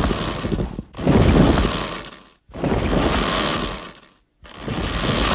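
A run of separate rough, noisy monster sound effects of the kaiju Destoroyah from the 1995 Heisei Godzilla film. Each effect lasts about one and a half seconds and is heaviest in the low range, with short silences between them: one is already going at the start, and new ones begin about a second in, about two and a half seconds in, and near the end.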